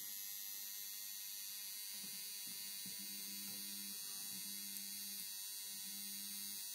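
Faint electrical mains hum that comes and goes in stretches of about a second from about three seconds in, over a steady background hiss.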